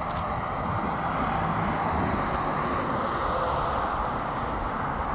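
Road traffic passing: a steady rush of tyre and engine noise that swells gently and then eases a little.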